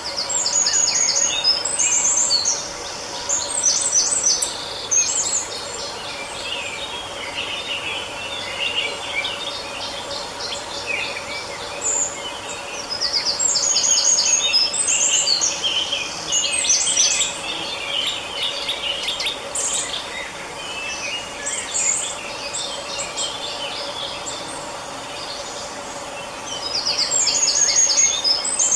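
Several songbirds singing in woodland. A bright trilled phrase comes back about three times, over a steady chorus of chirps and twitters, with a faint steady hum underneath.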